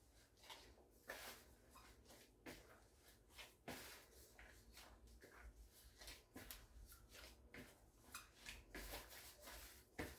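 Faint, irregular soft squishes and light knocks of a gloved hand kneading a soft hot-water dough in a plastic bowl.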